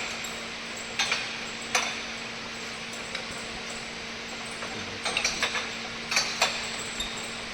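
Sharp metallic taps as a vacuum leak detector strikes the screw caps of glass jars passing on a conveyor, over the steady hum of the machine. The ring each cap gives back tells whether the jar is sealed and holds its vacuum. The taps come singly at first, then in a quick cluster about five seconds in and two more just after six seconds.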